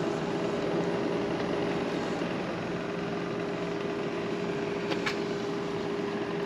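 Masking tape being peeled slowly off a freshly painted metal panel, over a steady mechanical hum with one constant tone.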